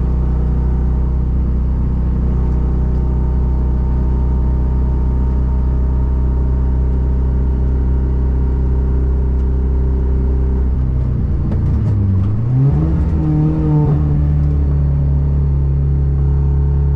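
Car engine running at a steady speed; about eleven seconds in its note drops and then climbs as the engine revs up, settling on a steady higher pitch.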